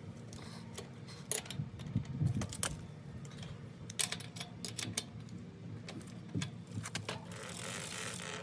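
Irregular metallic clicks, knocks and rattles as a mountain bike's rear wheel and chain are worked back into the frame, with a short rushing noise near the end.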